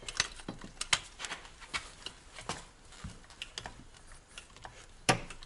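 Hand-operated hydraulic pump being worked to drive a 1-inch hydraulic knockout punch through a sheet-steel enclosure: a string of light, irregular clicks and ticks, with one sharper click near the end.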